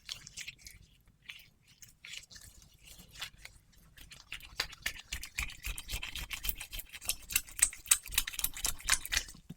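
Close-miked wet ASMR trigger sounds: rapid sticky clicks and crackles, sparse at first and growing denser and louder from about halfway through.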